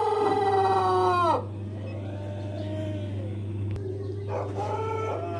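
Pelung rooster finishing a long, drawn-out crow: the held note drops in pitch and breaks off about a second and a half in. A shorter, fainter call follows near the end, over a steady low hum.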